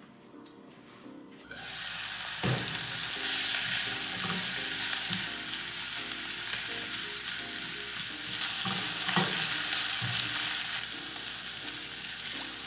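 Mushrooms and spinach sizzling in a frying pan over a gas burner, starting about a second and a half in, with a few sharp knocks as the food is stirred and moved around the pan.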